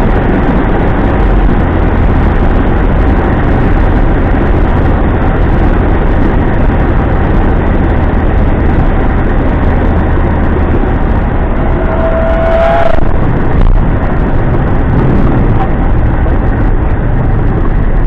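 Cockpit noise of a single-engine propeller plane's engine and rushing air through the flare and landing. The low engine note eases off about two-thirds of the way through as power comes back. Soon after, a brief rising tone sounds, typical of the stall warning in the flare, followed by a short knock as the wheels touch down.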